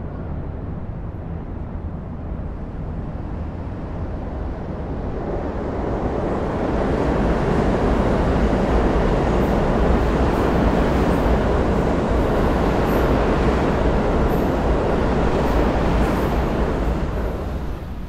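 A train crossing a steel truss railway bridge: a rumbling rush of noise that builds over the first several seconds, stays loud for about ten seconds with faint high ticks on top, then fades near the end.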